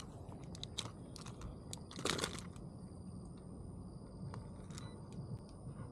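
Handling noise from a handheld digital fish scale: scattered light clicks and a short rustle about two seconds in.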